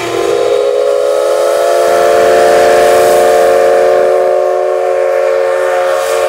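Steam whistle of the JNR C62 2 steam locomotive sounding one long, loud blast: a chord of several tones, held steady over a hiss of steam.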